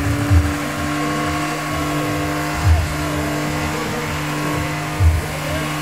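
BMW saloon doing a burnout: the engine is held at steady high revs while the rear tyres spin on the asphalt, with a low thump about every two seconds.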